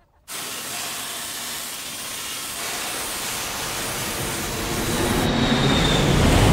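High-pressure water spray hissing as a pressure washer blasts chicken feathers out of a pickup truck's bed. About five seconds in the hiss gives way to the low rumble of a four-engine jet airliner passing low overhead, with a faint falling whine.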